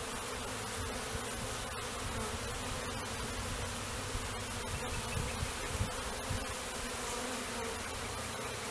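Honeybee swarm buzzing steadily around the open hive, with a few faint low bumps from handling partway through.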